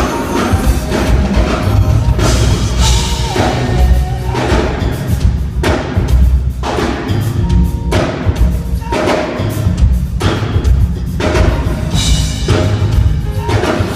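A live band playing loud music, with heavy bass and drums keeping a steady beat.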